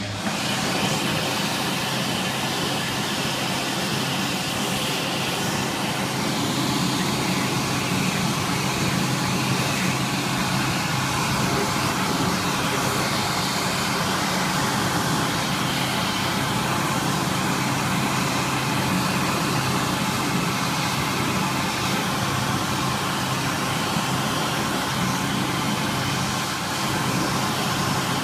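Fumagalli Magnum push-button electric hand dryer switching on abruptly and running steadily: the blower motor's rush of air with a low hum.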